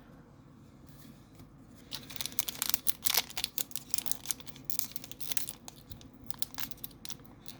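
Foil Pokémon booster pack wrapper being torn open and crinkled: after a quiet start, a dense run of crackling and tearing from about two seconds in.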